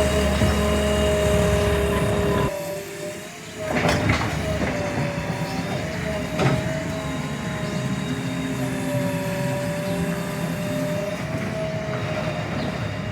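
JCB 3DX backhoe loader's diesel engine running steadily, dropping in level for about a second from two and a half seconds in, with a couple of brief knocks soon after.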